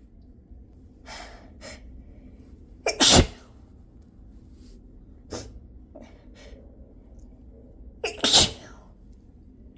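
A person sneezing twice, about five seconds apart. Each sneeze is a sharp, loud burst with a short catch of breath just before it.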